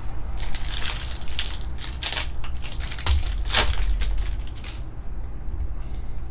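Foil trading-card pack torn open and crinkled by hand: a run of crinkling bursts, loudest about three and a half seconds in, dying down near the end as the cards come out.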